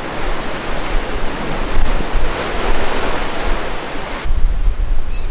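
Ocean surf and wind rushing steadily, with wind buffeting the microphone as a low rumble. About four seconds in the high hiss drops away and the low wind rumble carries on.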